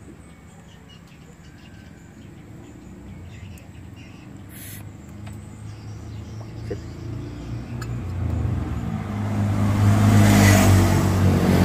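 A motor engine running, getting gradually louder over most of the stretch and loudest near the end, like a vehicle drawing near.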